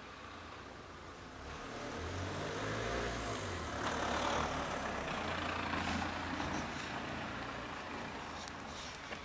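A heavy road vehicle passing by: its low engine rumble swells from about a second and a half in, is loudest around four seconds in, and fades away near the end.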